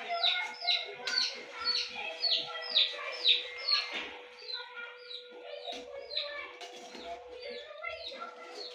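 Birds chirping: a rapid series of short, falling chirps, about three a second, louder in the first half, over a steady hum.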